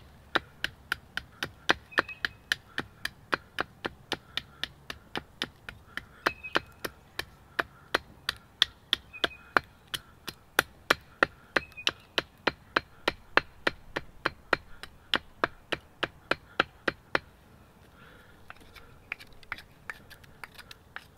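Fixed-blade knife chopping down into the end of a stick held upright on a wooden stump, carving a point: sharp wooden chops about three a second, stopping about 17 seconds in, then a few lighter cuts near the end.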